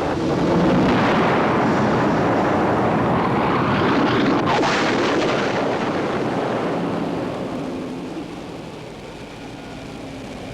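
Cartoon explosion sound effect of a time bomb going off: a long roar of dense noise that slowly dies away over the last few seconds.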